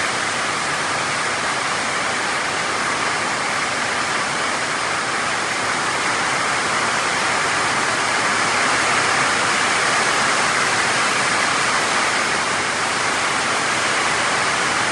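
Heavy tropical downpour falling steadily on trees and leaves: a loud, unbroken hiss of rain.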